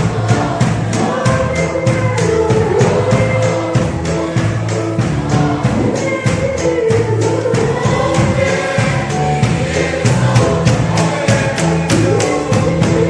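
A group of voices singing a gospel song together over a steady percussion beat.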